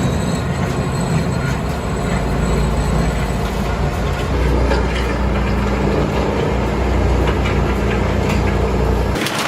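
Large industrial wood chipper running under load, its engine rumbling deep and steady under the dense noise of wood being shredded. The low rumble drops away abruptly just before the end.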